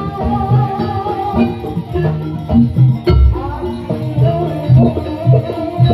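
Live jaranan music from a Javanese gamelan-style ensemble: drums and tuned metal percussion playing a busy, repeating pattern, with a deep gong-like stroke a little past halfway.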